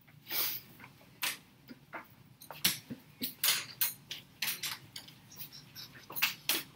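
About a dozen irregular light clicks and taps as a person walks up to an interactive whiteboard and touches it, over a faint low room hum.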